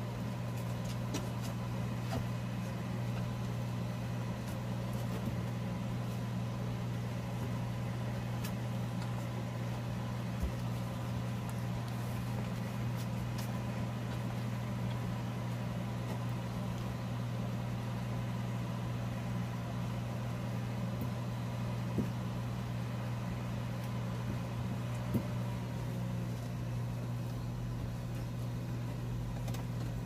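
Electric fan running with a steady low hum, and two faint taps late on.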